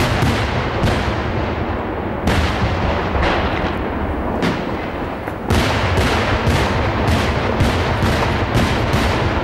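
Daytime aerial fireworks: a fast, irregular string of loud bangs from shells bursting overhead, over a continuous low rumble. The bangs thin out about two seconds in, then come thick and louder again from about five and a half seconds in.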